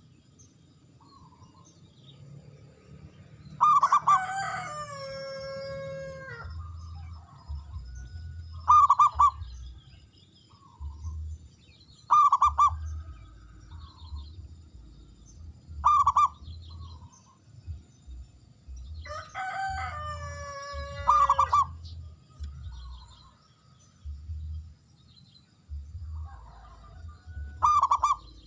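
Zebra dove singing: a short, loud call every few seconds, and twice a longer phrase of notes stepping down in pitch.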